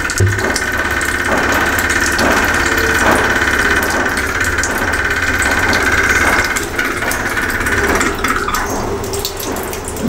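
Leaking chrome wall tap buzzing with a steady, rapidly pulsing hum as water runs through it, the noise that comes with a damaged washer or pipe. The buzz dies away about eight or nine seconds in, as the rubber band is tightened onto the tap.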